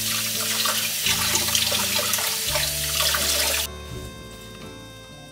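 Kitchen tap running, with water splashing over strawberries being rinsed in the hands; the water shuts off a little under four seconds in.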